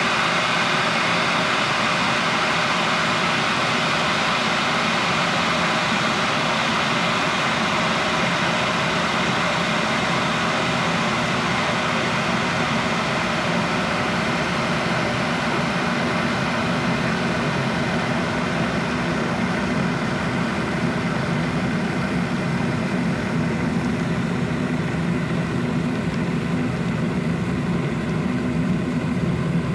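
Electric kettle boiling, close up: a steady rushing, bubbling noise whose higher hiss eases over the second half while a deeper rumble grows, as the water works up to a full rolling boil.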